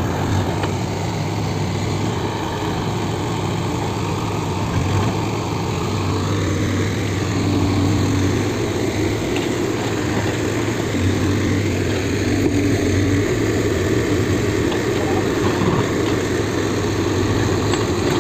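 Diesel engine of a Case backhoe loader running with a steady low drone while the machine works its front bucket through soil.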